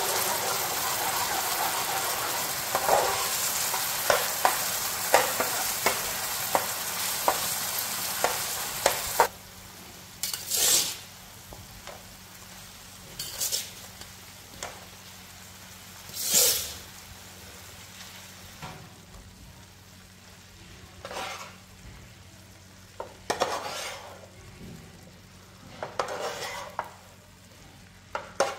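Pork and eggs sizzling hard in a frying pan while a metal slotted spatula taps and scrapes through them about once or twice a second. About nine seconds in the sizzle drops away suddenly, and what remains is the spatula stirring sliced bitter melon in the pan in separate scraping strokes every two or three seconds.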